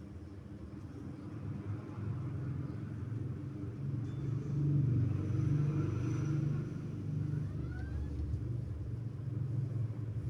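Motorcycle engine running with a low, steady note, getting louder about four seconds in and easing off a little after about seven seconds.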